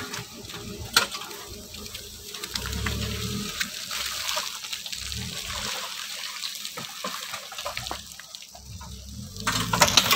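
Maruti Suzuki Baleno creeping along a muddy forest track, its tyres squelching through mud while sticks and brush crack and scrape against the underbody in scattered sharp clicks. The scraping sounded alarming but came from ordinary sticks and did no harm.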